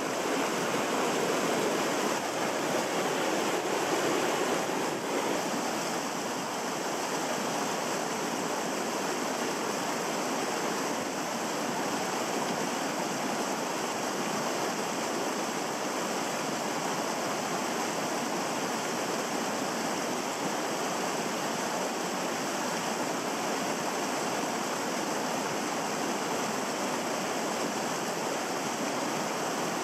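Mountain river water rushing steadily, slightly louder for the first few seconds.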